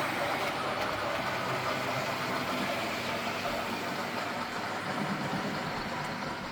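Hornby Black 5 OO-gauge model steam locomotive with sound running on a layout: a steady, noisy mix of its sound decoder's steam effects played through a small speaker.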